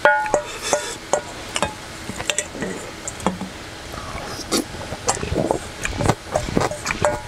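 A spoon scraping and clinking against a stainless steel mixing bowl while food is gathered up, with sharp clicks that ring briefly. In the middle come softer sounds of chewing a mouthful.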